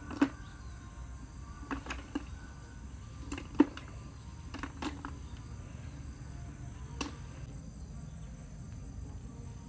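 Snail shells knocking against a plastic bucket as they are dropped in by hand: about nine sharp clicks and knocks, some in quick pairs, the last about seven seconds in. A faint steady insect buzz lies underneath.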